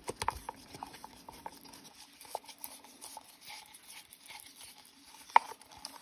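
Small clicks and scrapes of a stick working Resincrete mix in a paper cup, with a cluster of ticks at the start and one sharper tap about five seconds in.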